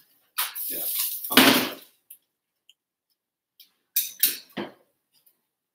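Metal tongs working spaghetti in a frying pan: a clattering, scraping stretch of metal on the pan from about half a second to two seconds in, then a few sharp clinks around four seconds in.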